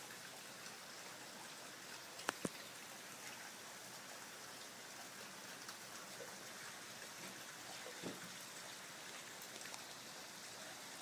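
Heavy rain falling steadily as an even hiss, with water trickling. Two sharp ticks come about two seconds in.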